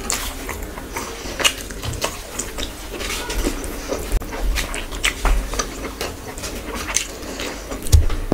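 Close-miked eating sounds: wet chewing and mouth smacks from a full mouth, mixed with the squelch of fingers kneading rice into curry. These come as many short, irregular clicks.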